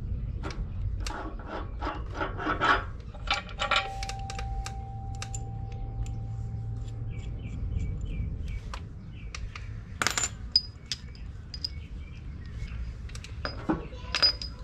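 Steel suspension parts and bolts clinking and knocking as a control arm is fitted into the frame. A struck metal part rings for a few seconds, and there are sharper clanks about ten seconds in and near the end.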